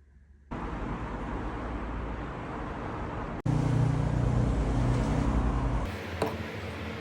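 Small two-stroke motorcycle engine running, heard in three abruptly cut clips, the middle one the loudest.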